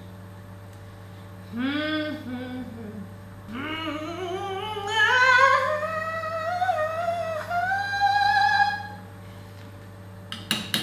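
A woman singing without words, opera-style: a short vocal phrase about a second and a half in, then a long note that slides steadily upward and is held high until near nine seconds. Near the end come a few sharp clinks of the metal ladle against the saucepan, over a steady low hum.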